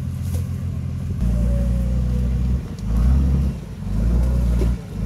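Nissan Patrol's engine running under load as the SUV pushes through broken ice and water. The engine gets louder about a second in and drops back briefly twice.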